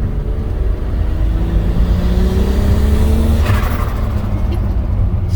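Turbocharged VR6 engine accelerating hard, its pitch rising for about three seconds, heard from inside the cabin, then a short hiss as the driver lets off and the engine settles back to a lower drone.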